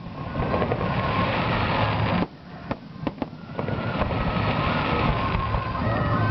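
Aerial fireworks shells bursting in a dense barrage of bangs and crackles. It drops to a lull about two seconds in, broken by a few sharp cracks, then builds back into a continuous barrage.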